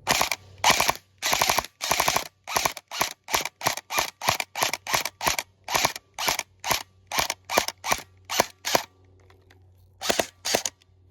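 Airsoft gun firing a long string of shots at a target: a few longer strokes at first, then an even run of about two shots a second, a pause, and two last shots before the firing stops as the gun runs out of ammo.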